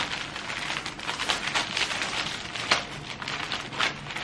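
Paper gift wrapping rustling and crinkling as it is handled and opened, with many small irregular crackles.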